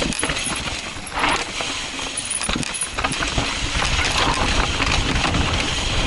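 Intense Tracer mountain bike descending a rocky dirt trail: tyres rolling over dirt and rock while the chain and frame rattle with many small clicks. Wind rumbles on the microphone, growing louder after about three seconds as speed picks up.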